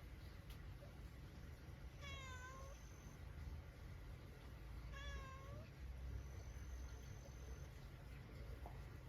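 A cat meowing twice, two short calls about three seconds apart, over a faint low background rumble and a faint high steady tone that comes and goes.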